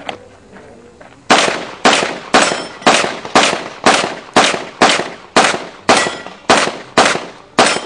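Handgun fired in a rapid string of about thirteen shots, roughly two a second, each shot with a short echoing tail; the string starts about a second and a half in and runs through to the end.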